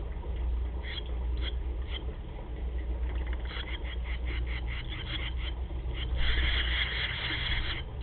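Barn swallow nestlings begging: a quick run of short, high chirps from about three and a half seconds in, swelling into a continuous begging chorus about six seconds in, over a steady low electrical hum.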